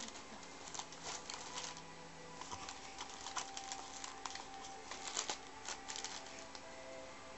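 Irregular light crackling and scratching of paper and cardboard as a cat shifts and paws inside a small cardboard box lined with paper.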